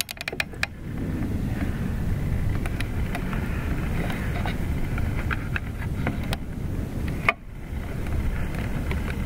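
Steady low outdoor rumble. A few faint clicks sound in the first second, and a sharp click comes about seven seconds in, followed by a brief dip.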